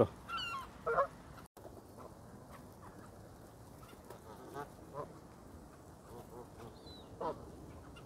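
Canada geese honking: short calls, loudest at the start and about a second in, then quieter honks now and then.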